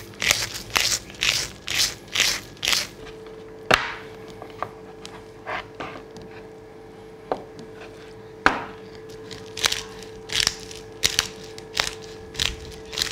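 Hand-twisted pepper mill grinding peppercorns, short crunching strokes about two a second. The grinding pauses for several seconds in the middle, with only a few scattered clicks, then starts again in a regular run near the end.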